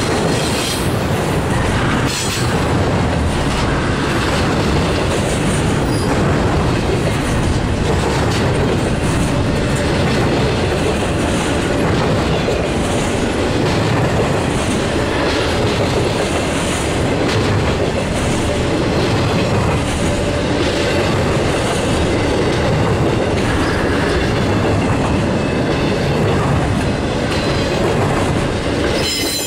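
Double-stack intermodal freight train's loaded well cars rolling steadily past, wheels clacking over the rail joints, with faint high-pitched wheel squeals at times.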